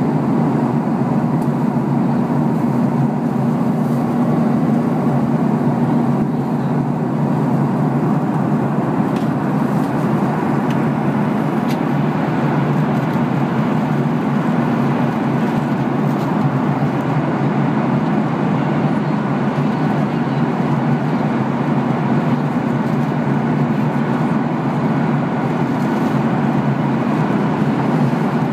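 Steady cabin drone of a Boeing 737-800 in flight, its CFM56-7B turbofan engines and the airflow heard from a window seat over the wing, with a low hum under an even rushing noise.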